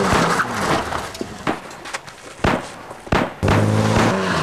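A car engine running, giving way to a run of sharp bangs spread unevenly over about three seconds, with the engine back on a steady note near the end.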